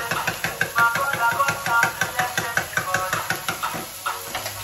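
Egg being beaten with a fork in a ceramic bowl: a fast, even run of light clinks, several strokes a second.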